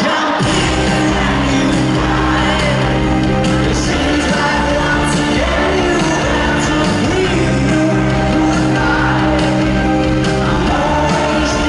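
Rock band playing live in a large arena, with electric guitars, bass, drums and singing, and the crowd shouting along. The bass and drums come in just after the start.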